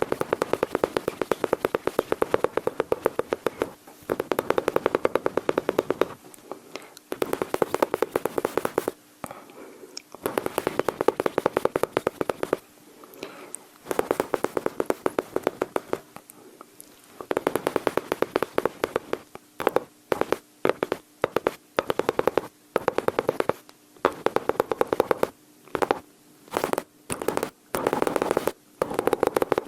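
Mouth sounds imitating machine-gun fire: rapid trains of clicks and pops in runs of a few seconds each. Over the last ten seconds they break up into short, separate bursts.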